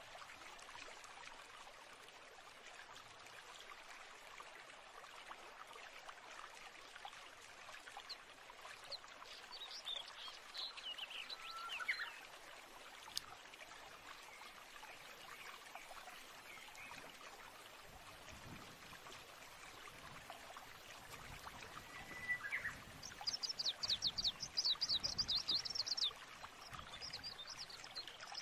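Birdsong over a steady rush of running water. A few descending chirps come around ten to twelve seconds in, and a fast trill of high notes near the end is the loudest part.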